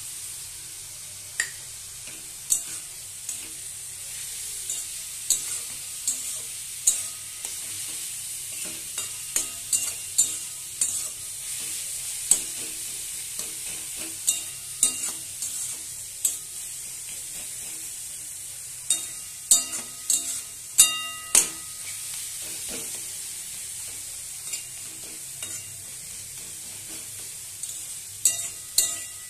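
Grated bottle gourd and coconut frying in a metal kadai: a steady sizzle, with a spatula stirring and knocking against the pan at irregular intervals. A cluster of louder strikes about two-thirds of the way through makes the pan ring briefly.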